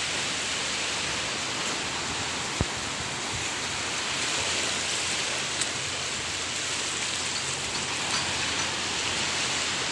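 Small sea waves washing in over the shallows, a steady foaming hiss of surf.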